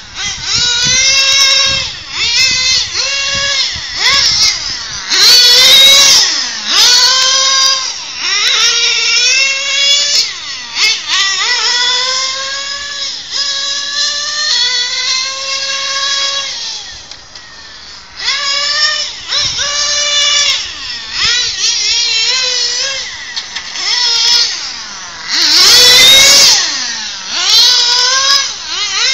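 Kyosho FW-05RR nitro RC touring car's small glow engine screaming, its high-pitched whine rising and dropping again and again as the car accelerates and slows through the corners. It gets loudest in two rushes, about six seconds in and near the end.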